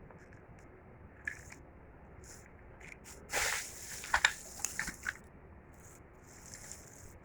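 Packaging being handled: a short rustle about three and a half seconds in, then a quick run of sharp crackles and clicks.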